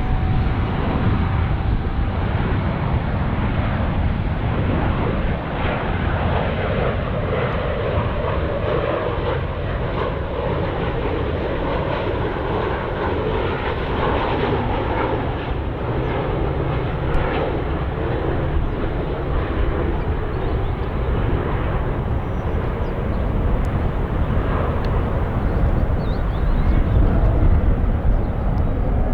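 Boeing 737-800 turbofan engines on final approach, a steady jet rumble and rush that grows a little louder near the end.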